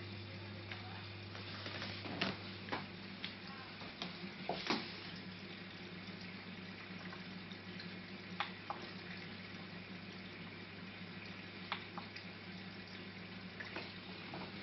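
Water moving and splashing in a 210-litre marine reef aquarium, over a steady low hum from its circulation equipment. A few short sharp ticks, two to three seconds in and again around eight and twelve seconds.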